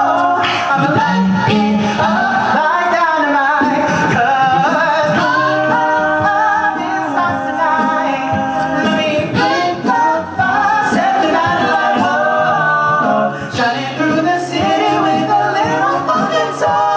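Male a cappella group singing in layered harmony, with a held sung bass line underneath and a few sharp percussive hits.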